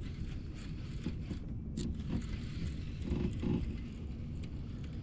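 Handling noise of fishing gear on a kayak: scattered clicks and scrapes, a sharp click about two seconds in and a short creak a little after three seconds, over a low steady rumble.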